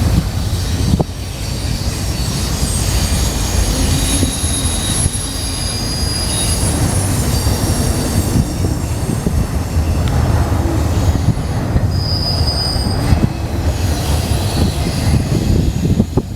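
BNSF intermodal train's container cars rolling past: a steady rumble of steel wheels on rail, with high-pitched wheel squeal coming and going.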